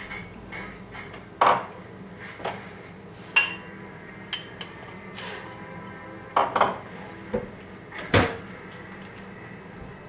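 Cutlery clinking against dishes: scattered sharp clinks, about eight in all, over a faint steady hum.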